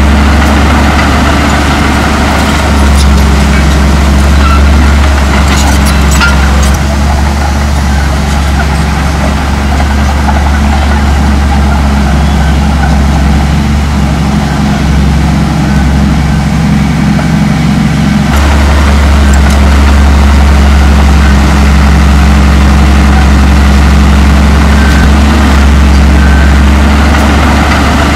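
Komatsu D58E crawler dozer's diesel engine running steadily at a loud, constant level as the machine works dirt. Its low note shifts about eighteen seconds in.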